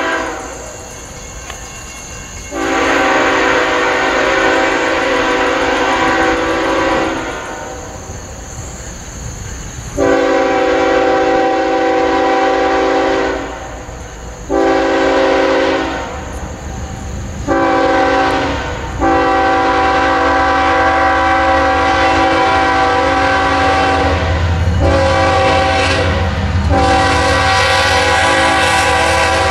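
Approaching diesel locomotive's multi-chime air horn blowing two long blasts, a short one and a long held one, the pattern sounded for a road crossing. The low rumble of the locomotive builds under the horn near the end.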